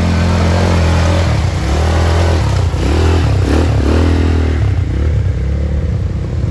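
Small vehicle engine running under way, loud and steady, its pitch rising and falling a few times midway.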